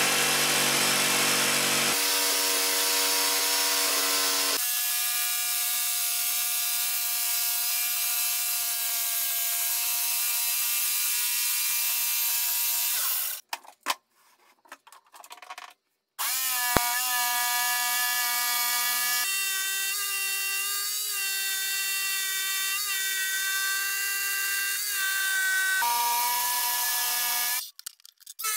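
Electric jigsaw running as it cuts a 45-degree bevel around the edge of a thick wooden circle: a steady motor whine whose pitch steps up and down a few times. It stops about halfway through, starts again with a rising whine a couple of seconds later, and stops again just before the end.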